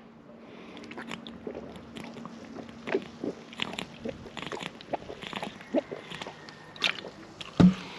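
A man gulping sparkling mineral water from a plastic bottle through its sports cap: an uneven run of small swallows and mouth and bottle clicks, with one louder, deeper gulp near the end.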